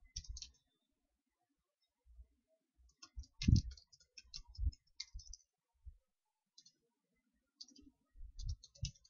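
Computer keyboard typing in three short bursts of key clicks, with a heavier thump among them about three and a half seconds in.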